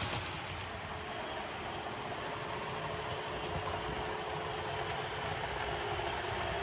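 OO gauge model train running along the layout track: a steady rumble of wheels and mechanism with a faint steady whine.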